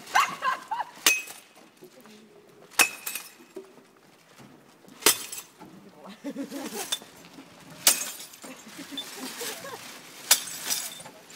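Empty glass bottles dropped one at a time into a street glass-recycling bin, each landing with a sharp clink, some of them breaking inside. About six drops, one every one to three seconds.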